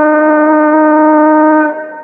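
A man's voice in Quran recitation holding one long, steady note, which breaks off near the end, leaving a short echo.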